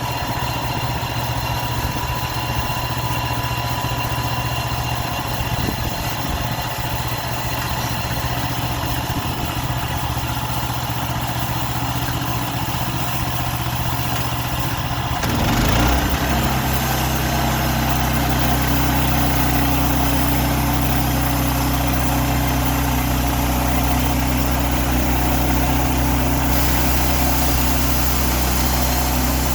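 Sawmill's engine running steadily; about halfway through its note changes and it runs a little louder and steadier.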